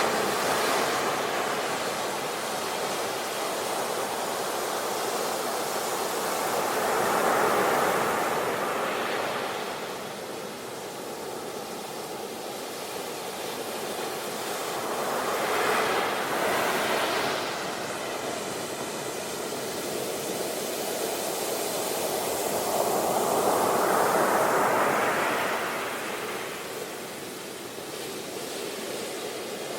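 Sea waves breaking and washing up on a beach, in slow swells about every eight seconds over a steady rush of surf.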